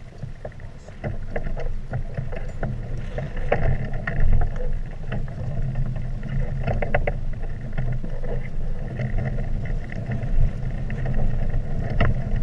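Water rushing and slapping against the hulls of a small sailing catamaran under way, over a steady low rumble, with irregular splashes and knocks.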